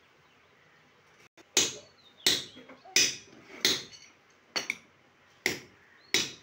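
Hammer blows on metal at the foot of a steel hand-winch boring rig's frame: about seven sharp, ringing strikes roughly two-thirds of a second apart, starting about a second and a half in.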